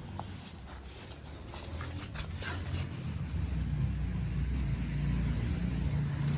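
Low rumble of a passing vehicle, swelling over a few seconds to its loudest near the end, with a few faint light clicks above it.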